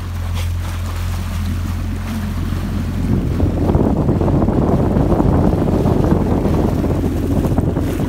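Wind buffeting the microphone on an open boat, heavier from about three seconds in, over a steady low hum.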